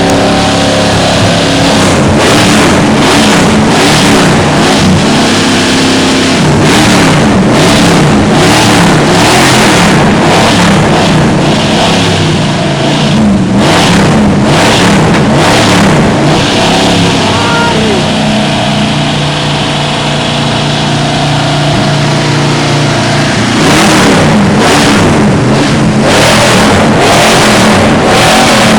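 Ford F-100 pickup's engine running loud, revved repeatedly. It eases to a steadier, quieter run for a few seconds after the middle, then revs again near the end.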